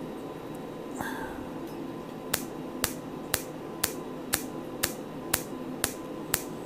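Fotona Erbium-YAG laser firing pulses through its handpiece at two a second, each a sharp snap as the beam ablates the pigmented skin, starting about two seconds in. A steady faint hum sits underneath.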